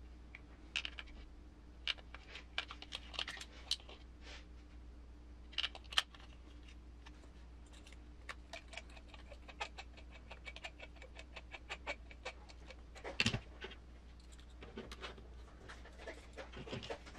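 Small clicks and taps from handling metal screws, parts and a hex driver while a motor is screwed onto an RC crawler's transmission. A quick run of fine ticks comes in the middle, and a louder knock about 13 seconds in.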